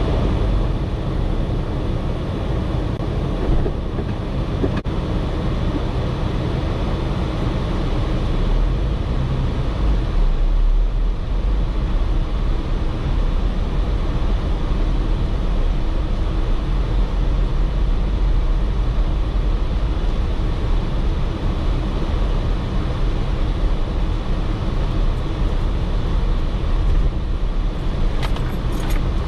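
Jeep Wrangler driving, with a steady rumble of engine and road noise.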